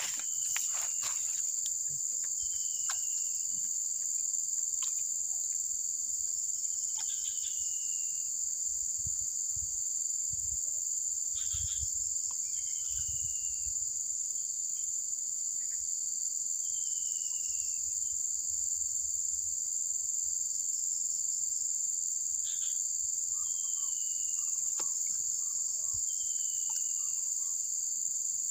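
Steady high-pitched insect chorus, with a short falling whistle repeating every four to five seconds and a few low thumps near the middle.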